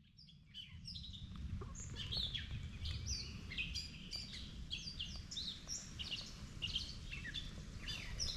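Songbirds in a dawn chorus: many overlapping short chirps and whistles, some sliding down in pitch, over a steady low rumble. The sound fades in during the first second.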